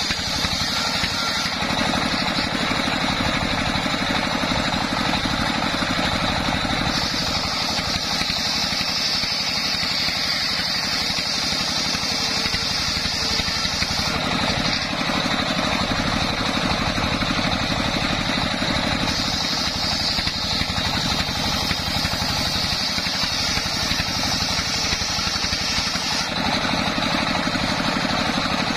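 Homemade table circular saw, belt-driven by a stationary single-cylinder diesel engine, running steadily while ripping sengon wood planks. A high whine of the blade in the wood comes and goes several times as cuts start and end.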